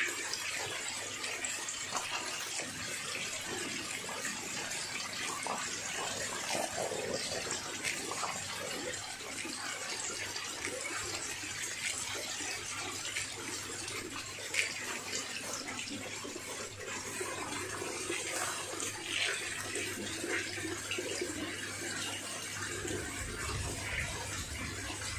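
A crowded mass of lele catfish thrashing and churning at the water surface: a steady splashing and sloshing hiss with many small sharp splashes.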